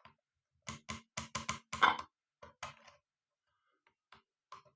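Canon AF35M film camera's ASA film-speed ring being turned, clicking through its settings: a quick run of small clicks, then a few scattered ones near the end.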